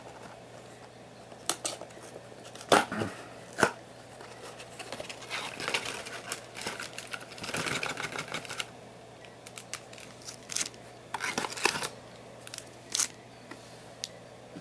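Yu-Gi-Oh! booster box packaging being handled and opened by hand: plastic wrap and cardboard crinkling and tearing, with scattered sharp clicks and taps. A steady low hum from a small space heater runs underneath.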